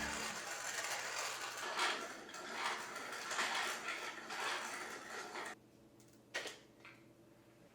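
Mechanical handling noise: several swelling passes of a scraping, rasping sound that cuts off abruptly, followed by two short clicks.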